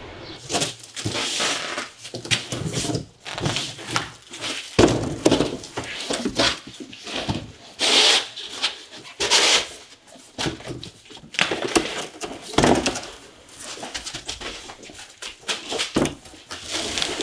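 Cardboard boxes and bubble-wrap packing being handled: irregular rustling and scraping of cardboard flaps and plastic wrap, with a few knocks.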